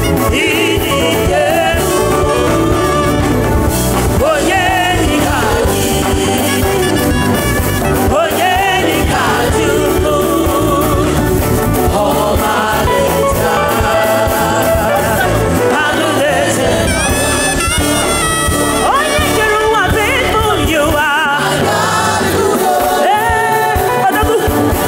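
Upbeat gospel praise music with lead singing over a full band and a steady beat.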